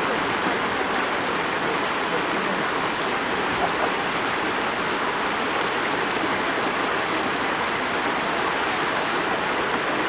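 Shallow stream rushing steadily over a low step of stones, a constant even splashing of small rapids.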